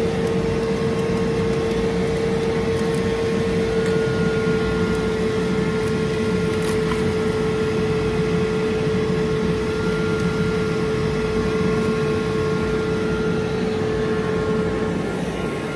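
Glowforge Pro laser cutter's fans running on after a cut: a steady fan hum with a constant whine, the whine dropping away near the end.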